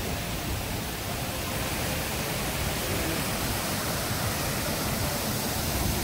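Waterfall rushing steadily: an even, continuous hiss of falling water with a deep rumble beneath it.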